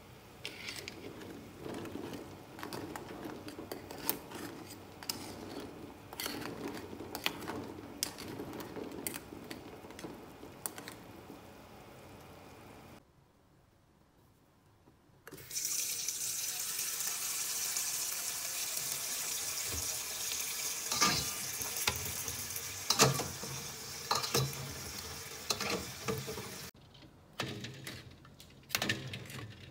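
A large stainless pot of eggs at a rolling boil, bubbling with small knocks as the eggs jostle. After a short gap, a tap runs with a steady hiss, with a few knocks, and near the end a string of sharp clinks as metal tongs move eggs into a steel bowl of water.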